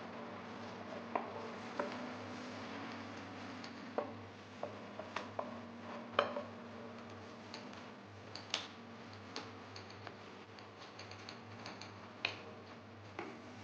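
Irregular light clinks and taps of kitchen utensils and dishes, about a dozen scattered sharp strikes, over a steady low hum.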